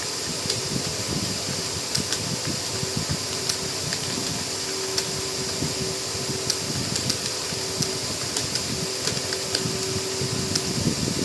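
Light, scattered clicks of computer keyboard keys being typed, over a steady fan-like whir with a faint hum.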